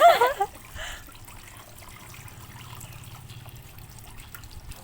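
A child's high-pitched call at the very start, then faint trickling water with small drips and ticks.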